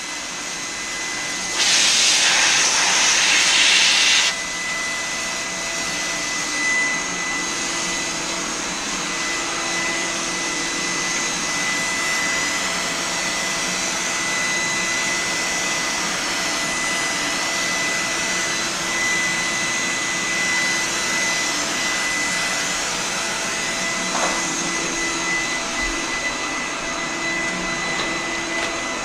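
HVLP paint spray gun with a gravity-feed cup spraying lacquer, its air supply giving a steady whine and hiss. About two seconds in, a louder rush of hissing air lasts a couple of seconds, then it settles back to the steady whine.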